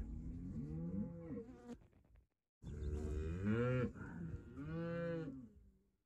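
Young black cattle mooing: a series of calls, each rising and then falling in pitch, with a short pause about two seconds in.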